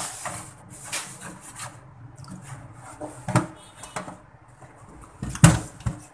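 A gloved hand handling a greasy range-hood grease filter in a stainless steel sink of degreaser solution: rubbing and handling noise, with scattered knocks against the sink and the loudest thump about five seconds in.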